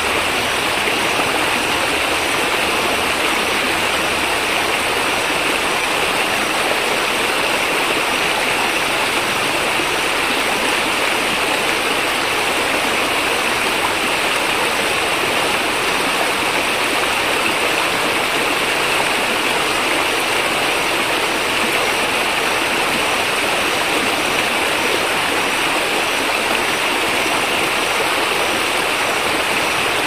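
White-water mountain stream cascading over boulders below a waterfall: a steady, unbroken rush of water.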